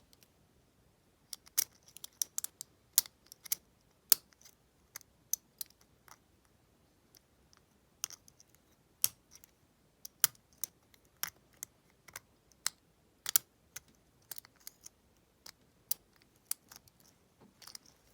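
Lock pick working the pins of an IKonic double-cylinder deadbolt under top-of-the-keyway tension: sharp, irregular metallic clicks and ticks, a few every second.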